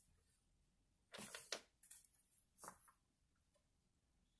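Small pine wood blocks being handled and pressed together: a few faint short knocks and scrapes about a second in, again near two seconds and near three seconds, with near silence between.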